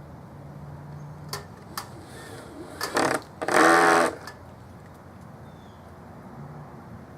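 Cordless drill driving a screw into the wooden birdhouse in two short runs about three seconds in, the second longer and louder, after a couple of sharp clicks.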